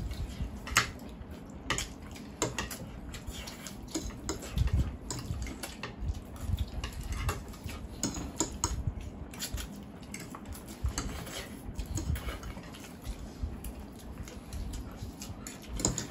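Metal forks clinking and scraping on plates in short, irregular taps, with slurping of saucy noodles as several people eat fast.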